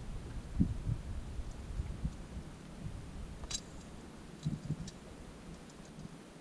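Handling noise while a freshly caught northern pike is held and unhooked by hand: faint low thumps and light ticks, with one sharp click about three and a half seconds in.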